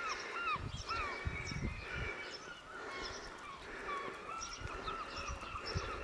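Birds chirping over and over in short hooked calls, with low muffled thuds underneath.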